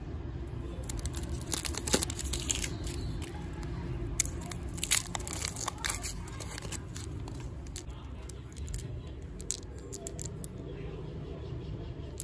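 Paper-and-foil wrapper of a Parle Rola-Cola candy roll being torn open and peeled back by hand: sharp crinkling and tearing, busiest in the first half and lighter after, over a steady low hum.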